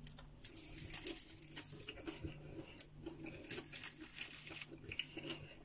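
Aluminium foil around a kebab roll crinkling and crackling as the foil-wrapped roll is gripped and handled on a plate: a faint, irregular run of small crackles.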